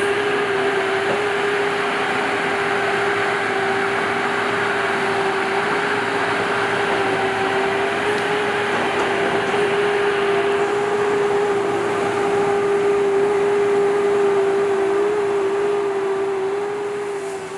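Heavy logging machinery running steadily, a diesel engine and hydraulics with a constant whine, fading out at the end.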